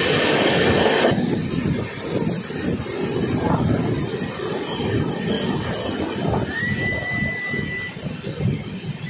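Passenger train running on the ghat line, heard from inside the coach: a steady rumble of wheels and coach over the track, with a louder rush of noise in the first second. Near the end a thin, high wheel squeal holds steady for about a second and a half.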